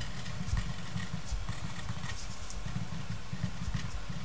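A steady low background rumble, with faint scratching of a pen writing on paper.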